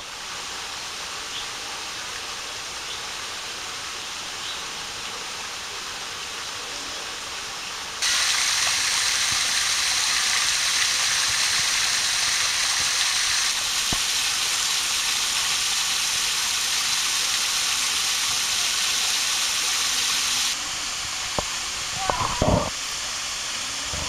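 Steady rush of water from a small rocky waterfall splashing into a pool. It grows louder and brighter about eight seconds in and softens again near the end, where a few short, sharp knocks come through.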